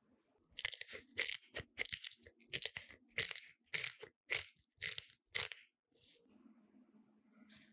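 Hand-twisted pepper mill grinding black peppercorns: a run of about a dozen sharp crunching twists, some two a second, which then stops.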